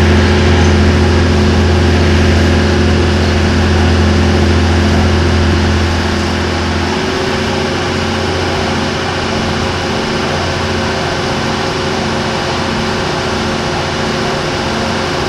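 Boat engine running steadily with a deep hum; about seven seconds in it eases off a little and its tone shifts slightly.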